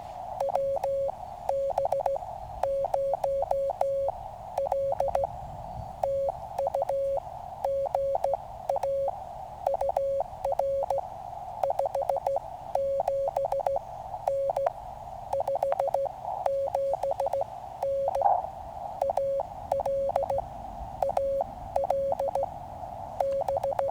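Morse code from a QRP Labs QCX mini transceiver: a single steady mid-pitched tone keyed on and off in dots and dashes over a narrow band of receiver hiss. The code is sent by hand on a straight key while a signal report is exchanged with a contacted station.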